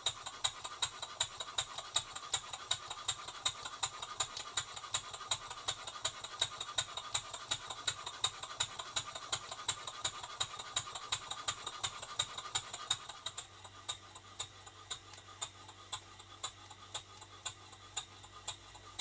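Stuart 5A single-cylinder model steam engine running on compressed air fed from a hand-held air blow gun, its exhaust giving a quick, even beat of sharp puffs several times a second. The beats stay regular throughout, the sign of an engine running well, and grow softer about two-thirds of the way through.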